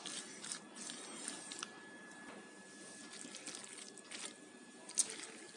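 A spatula stirring mayonnaise-coated shredded cabbage in a glass bowl: faint wet squelching with a few light scrapes and clicks against the glass, the sharpest about five seconds in.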